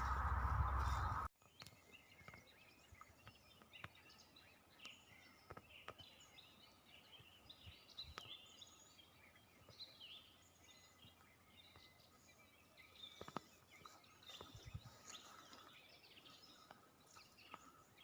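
Loud steady noise that cuts off abruptly just over a second in, then faint birdsong: several songbirds chirping and singing in short scattered phrases.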